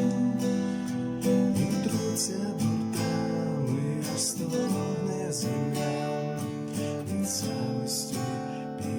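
Acoustic guitar strummed in a steady rhythm, playing chords of the song.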